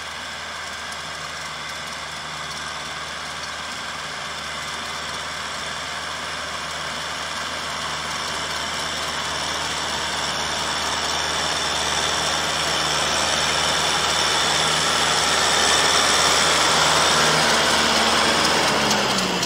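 Kubota tractor's diesel engine running steadily as the tractor crawls across the field, getting louder as it draws close and passes, loudest near the end.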